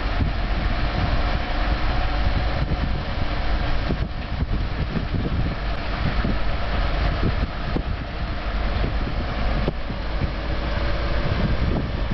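Heavy machinery running: a steady engine rumble with faint steady tones and scattered knocks.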